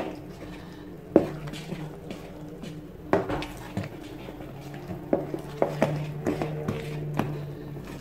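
A spoon stirring thick cake batter in a stainless steel mixing bowl, scraping and knocking against the side of the bowl at uneven intervals, each knock ringing briefly.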